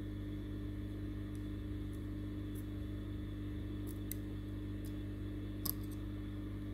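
Small tool clicking faintly against a smartphone's internals as the display's flex-cable connector is worked loose, a few scattered clicks with the clearest near the end, over a steady electrical hum.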